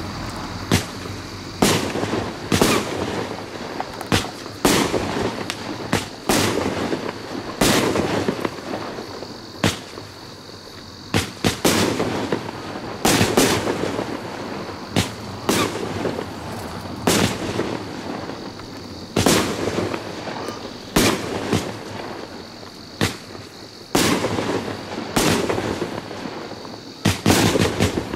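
Piromax Firewall, a 35-shot, 30 mm fan-shaped consumer firework cake, firing: a fast, irregular run of sharp bangs from shells launching and bursting, about one to two a second.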